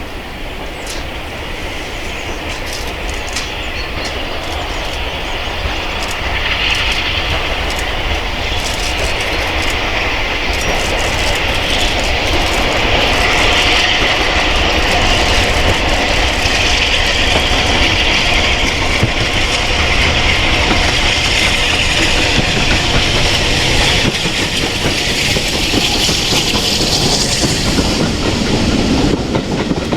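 A steam-hauled train running past, its wheels clicking over rail joints. It grows louder over the first dozen seconds, then holds steady as the carriages roll by.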